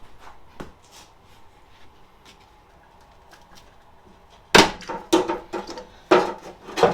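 Metal parts and tools being handled on a mower chassis: a few faint clicks, then from about four and a half seconds in a run of loud metallic clanks and knocks, each with a short ring.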